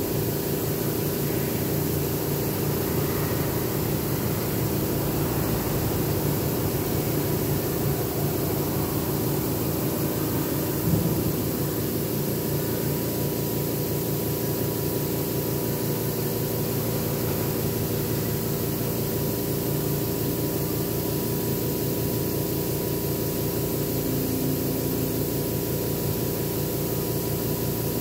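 Air compressor running steadily to feed an airbrush: a low, fast-pulsing hum under a steady hiss, with a single knock about 11 seconds in.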